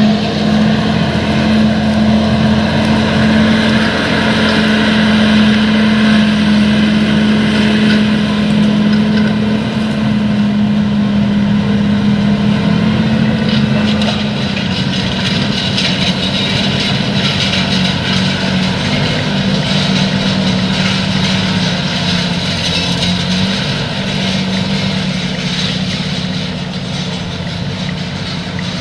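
John Deere 8345R tractor's six-cylinder diesel running steadily under load while pulling a cultivator through stubble, mixed with the noise of the discs and tines working the soil.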